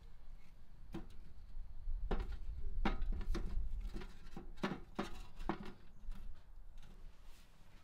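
A string of short, sharp clicks and knocks, about seven of them, as small hard objects are handled by hand at ground level, over a low rumble.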